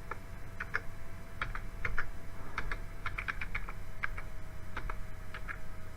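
Computer keyboard typing: irregular key clicks, some in quick runs, as a short text is typed in.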